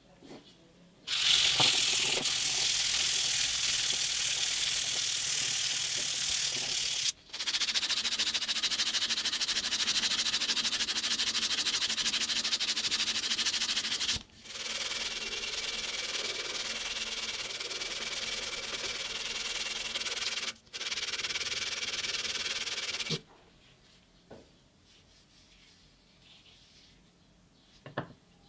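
Sandpaper held against a wooden knife handle with a brass ferrule as the handle spins, making a steady, unbroken scraping hiss with a faint hum beneath it, in long stretches broken by three brief gaps. It stops well after the middle, leaving only a few light taps.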